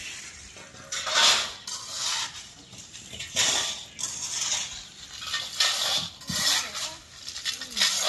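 Building materials being handled on a construction site: a series of sharp scrapes and clinks, roughly one a second, from bricks and tools on a hard concrete slab.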